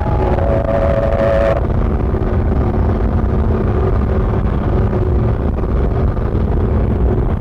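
Harsh noise music from a cassette: a dense, deep, rumbling wall of noise. A higher held tone sounds over it for about the first second and a half, then cuts off suddenly, leaving the steady rumble with faint drones.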